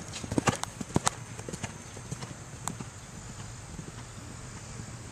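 A horse's hooves beating on a sand arena: a scatter of sharp clicks, thickest in the first second and sparser after.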